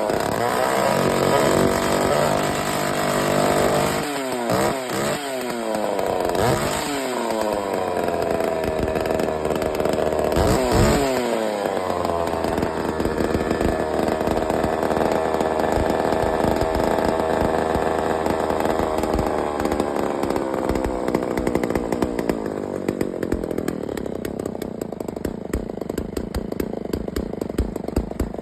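Homelite 2100 Special two-stroke chainsaw engine being revved, with repeated quick rises and falls in speed over the first dozen seconds. It then holds a steadier speed and slowly winds down lower and quieter near the end.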